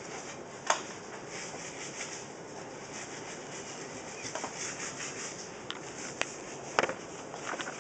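Blades scraping old silicone off aquarium glass: a steady, fluttering high scraping, with a few sharp clicks, the loudest about a second in and near the end.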